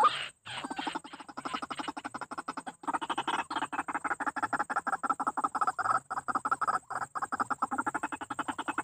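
White-breasted waterhen (ruak-ruak) calling: a long, fast run of repeated notes, many per second, broken by a few short pauses.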